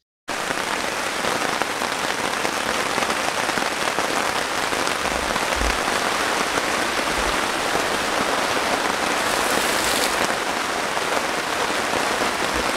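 Heavy rain pouring steadily, heard from under a tent's canvas, starting suddenly just after the start.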